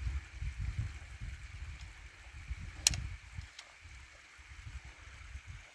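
Irregular low rumbling and thudding on the microphone as a climber moves across rock and scree, with one sharp click about three seconds in. The rumbling stops just before the end.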